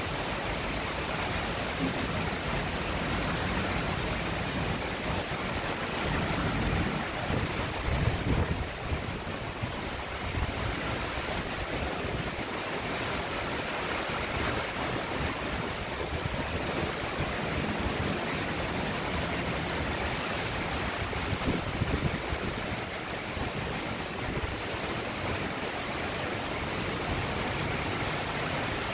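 Heavy tropical rain falling on canal water and metal roofs: a steady hiss, with two brief louder surges about eight seconds in and again about two-thirds of the way through.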